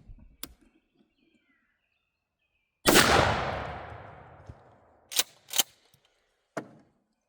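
A single 12-gauge pump shotgun (Mossberg 500) blast, firing a 3-inch turkey load of #6 shot, with a long echoing tail that dies away over about two seconds. Two sharp clacks follow soon after, then a lighter click.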